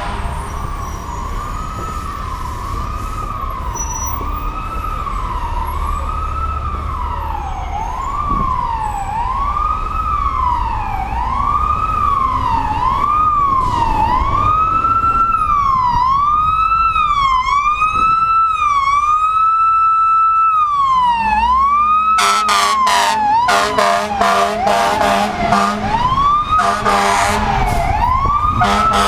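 Fire truck siren sweeping up and down about once a second, growing louder as it approaches. About three quarters of the way in, blasts of a deep air horn join in over the siren.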